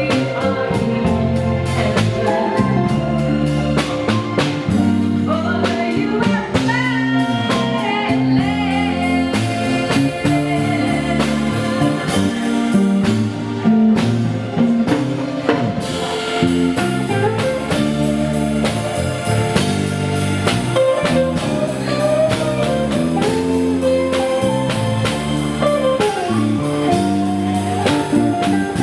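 Live band playing a song: a woman singing over electric guitar and keyboard, with a steady drum beat.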